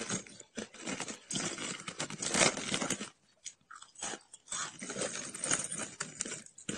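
A mouth crunching and chewing hard frozen shaved ice: dense crackling bites, loudest about two and a half seconds in. The crunching stops for about a second and a half just after the midpoint, then starts again.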